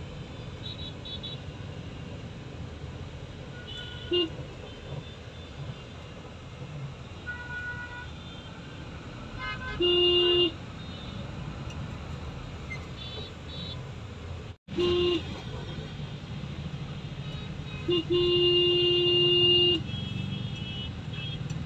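Busy road traffic with vehicle horns honking over steady engine and road noise. There is a short toot about 4 s in, a half-second blast about 10 s in, another short one near the middle, and a long horn of almost two seconds near the end. Fainter, higher-pitched beeps from other vehicles sound in between.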